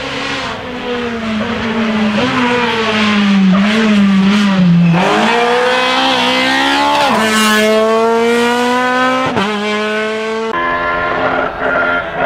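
White Citroën C2 rally car's engine revving hard as it comes closer through a bend, growing louder over the first few seconds; the revs dip, climb again, then drop sharply twice. Near the end, after a cut, another rally car's engine is heard.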